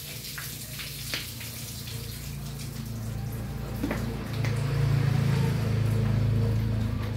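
Water splashing and pouring as a wet dog is washed and rinsed, with scattered splashes. A steady low hum grows louder about four and a half seconds in.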